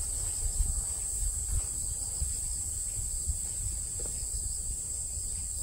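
Insects chirring in a steady high-pitched chorus, with a low rumble underneath.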